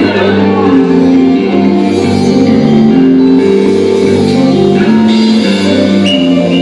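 Live band playing improvised experimental electronica with percussion: a run of pitched notes, each held about half a second, stepping up and down over a steady bed of sound.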